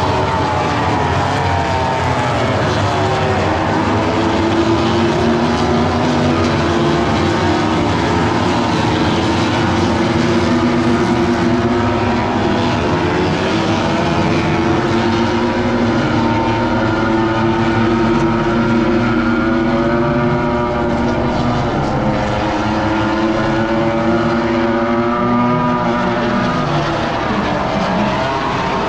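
MotoGP racing motorcycles running past at speed, several engines at once, their notes rising and falling over one another.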